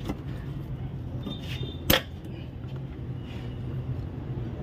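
Hands working at a car's under-bonnet fuse and relay box, with one sharp click about two seconds in and a few faint ticks, over a steady low hum.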